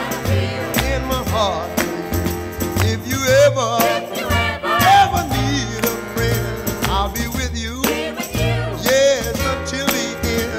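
A song playing as background music, with a bass line and a steady beat.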